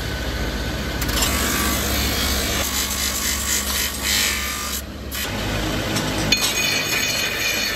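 Motor-driven abrasive wheel grinding the cast metal body of a meat mincer: a steady motor hum under a harsh grinding rasp, which drops out briefly about five seconds in. A higher steady whine comes in near the end.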